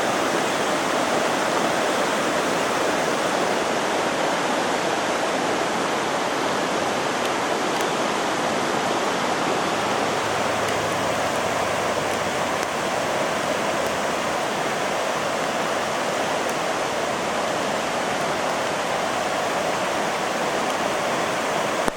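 Floodwater rushing steadily in a swollen creek, a continuous loud roar of churning water.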